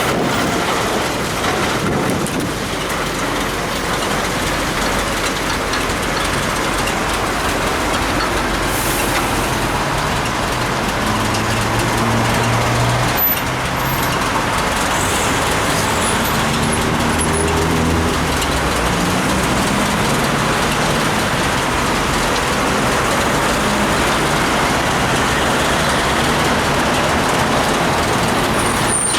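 Steady hiss of wet road and air noise from riding a bicycle in traffic in the rain, with a motor vehicle's engine running close by for several seconds midway.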